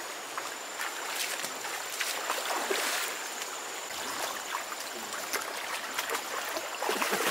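Shallow stream water sloshing and splashing as people wade and drag a fishing net through it by hand, with many small splashes and a bigger one about three seconds in.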